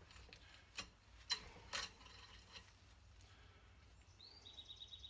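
Quiet handling of a rifle-cleaning cable and cloth patches: three short clicks about a second in, then faint small ticks. A faint high steady tone comes in near the end.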